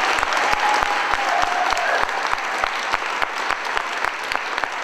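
Audience applauding, a dense run of clapping that thins out and gets a little quieter toward the end.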